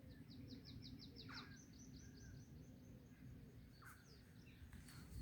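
A small songbird singing faintly: a fast series of about a dozen short repeated high notes, stepping up in pitch partway through, over a low steady background hum. A sharp click near the end.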